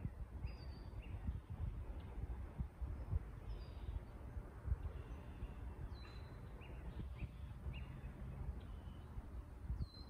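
Several songbirds chirping in short high notes, scattered throughout, over a steady low outdoor rumble.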